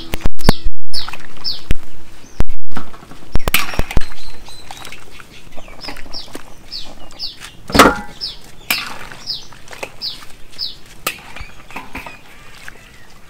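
A bird chirping over and over, short high notes that fall in pitch, about two a second. Several very loud knocks come in the first three seconds, and a louder short call comes about eight seconds in.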